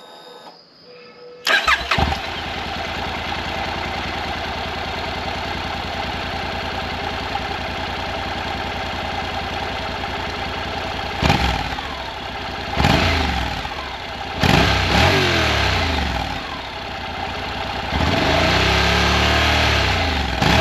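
Honda NC750X parallel-twin engine breathing through a MIVV Suono aftermarket exhaust: it starts about a second and a half in and idles steadily, then is blipped three times around the middle, and near the end the revs are raised and held for a couple of seconds.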